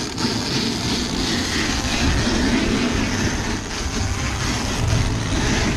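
Electric radio-controlled car driving, a steady rushing noise of motor and tyres.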